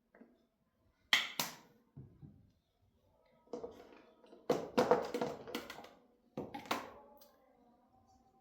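Squeeze bottle of sauce: two sharp clicks about a second in as it is opened, then several noisy squirts as sauce is squeezed out.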